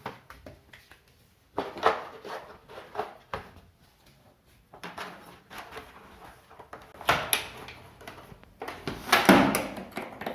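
Intermittent knocks and clattering, like objects being handled and set down, in several separate bursts, the loudest near the end.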